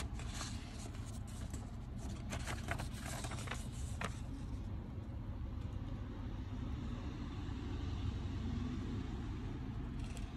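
Paper pages of an instruction manual being handled and turned, a few short rustles in the first four seconds, over a steady low rumble.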